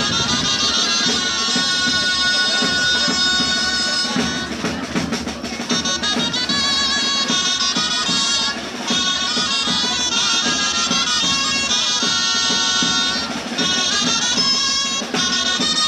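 Traditional festival music: a shrill reed wind instrument plays a continuous ornamented, trilling melody, with drum accompaniment.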